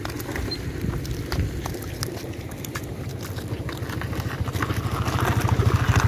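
A small engine running close by with an even low throb, growing louder over the last two seconds. Scattered light clicks and taps sound over it.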